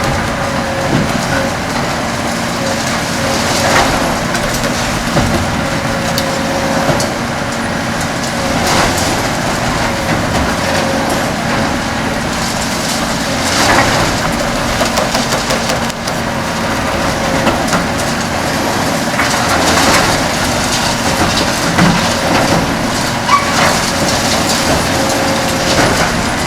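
Kobelco SK 500LC-10 demolition excavator's six-cylinder Hino diesel and hydraulics running with a steady hum, while its Verachtert concrete shear crushes concrete with about five loud cracking and crunching surges a few seconds apart.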